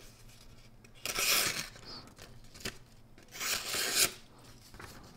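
A folding knife's blade slicing through a sheet of paper in a sharpness test: two short scratchy cuts about two seconds apart, with a single light click between them.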